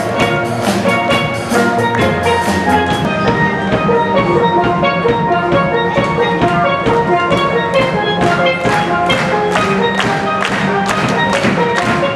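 Steel band playing a tune: a mix of high lead pans and deep bass pans sounding many short ringing notes, with a drum kit keeping a steady beat.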